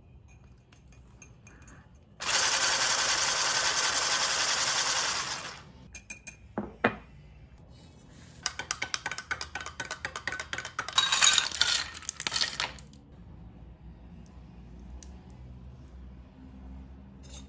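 Electric whisk running for about three seconds, beating egg yolks and condensed milk in a glass jar. Then a spoon clinks a couple of times, followed by about four seconds of fast ticking as the spoon stirs instant coffee against the side of a drinking glass.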